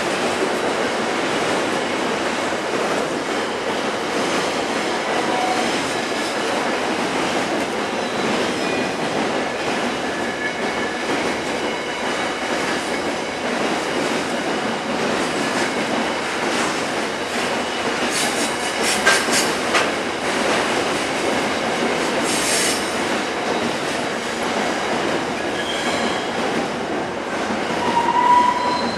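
Wagons of a long intermodal freight train rolling past on steel rails: a steady rumble of wheels with brief high wheel squeals. Runs of sharp clicks come about 18 to 20 seconds in and again near 22 seconds, and a louder squeal sounds near the end.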